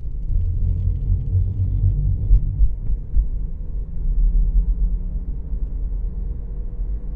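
Car tyres rumbling over a steel grid bridge deck inside a moving car, loudest for the first few seconds, then easing to steady low road noise as the surface changes to concrete.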